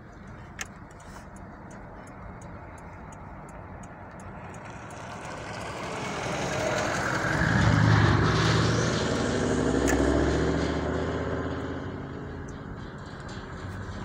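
Engine and tyres of a red flatbed ute driving past close by, growing louder to a peak about eight seconds in, then fading as it moves away up the road.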